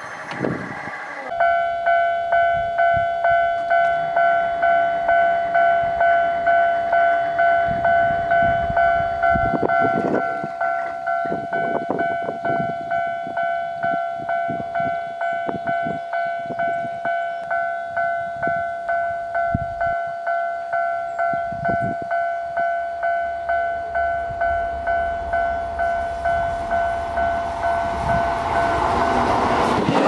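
Japanese level-crossing warning bell starts about a second in and rings its two-tone "kan-kan" a little under twice a second. Near the end a Keisei electric train comes up, and its rumble swells until it passes the crossing.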